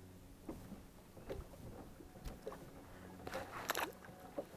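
A fish dropped back into the lake, splashing briefly about three and a half seconds in, after light knocks and clicks of it being handled and unhooked. A faint steady low hum runs underneath.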